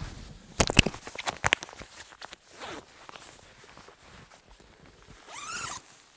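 A cluster of sharp clicks and rustling about a second in, the loudest part. Near the end comes a short zipper rasp rising in pitch, a zipper being pulled on the down sleeping bag.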